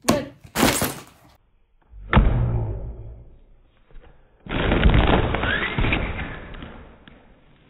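Two deep booms about two and a half seconds apart, each starting suddenly and dying away over a second or two; the second is longer.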